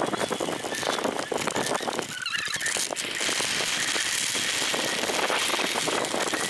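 Riding noise of an electric off-road scooter on a dirt and gravel forest track: wind rushing over the handlebar microphone, with tyres crunching and the frame rattling over bumps.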